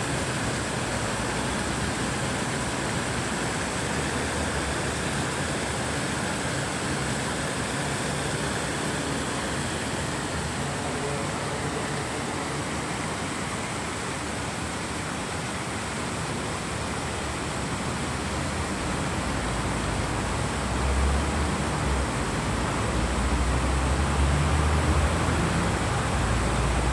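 Water from a stepped brick water-wall fountain splashing and pouring down the steps in a steady rush. A low rumble joins in about two-thirds of the way through.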